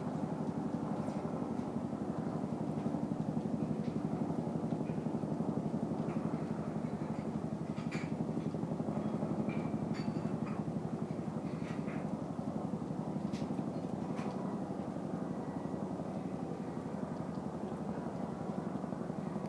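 Helicopters circling overhead, their rotors making a steady, rapid chop.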